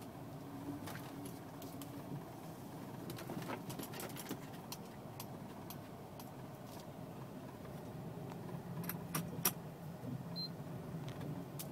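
Nissan Maxima engine running low and steady, heard from inside the cabin, with scattered light clicks and jingling rattles over it. The sharpest click comes late on.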